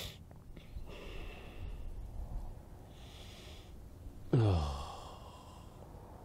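A man's audible breaths, then a loud, exasperated groan about four seconds in that drops steeply in pitch and fades. It sounds like frustration at a mis-cut piece.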